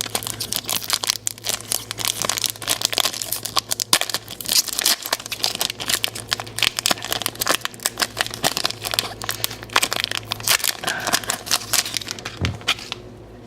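A Pokémon card booster pack's foil wrapper crinkling and being torn open by hand, a dense run of irregular crackles that dies away shortly before the end.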